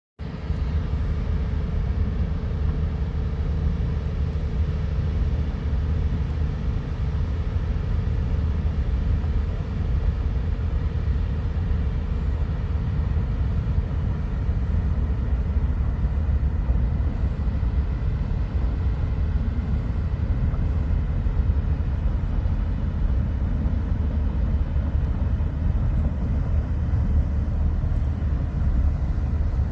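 Large ship's engine running with a steady low drone, carrying a constant hum tone.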